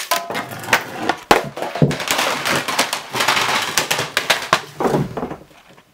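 Fingerboard (a miniature finger skateboard) rolling and clattering on a hard floor: a rough rolling noise broken by many sharp clacks, fading out near the end.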